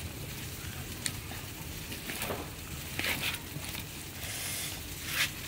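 Wet duck feathers being plucked by hand: several short, rustling rips as feathers are pulled out, over a steady hiss.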